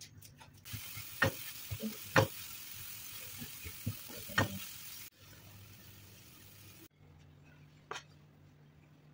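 Riced cauliflower sizzling in a nonstick frying pan as a silicone spatula stirs it, with several sharp knocks and scrapes of the spatula against the pan. The sizzle cuts off suddenly about five seconds in, leaving a faint hum and a single tap near the end.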